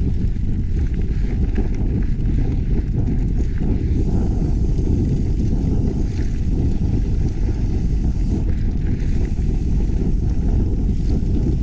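Wind buffeting the microphone of a GoPro on a mountain bike riding downhill: a steady, loud, low rumble, with faint clicks and rattles over it.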